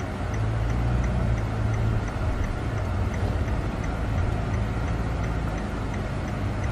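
Steady road and engine rumble heard inside the cabin of a moving car, with a faint regular ticking about three times a second.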